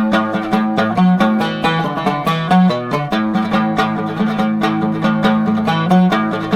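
Instrumental music led by a plucked string instrument playing a quick run of rapid, evenly spaced notes over a steady low line.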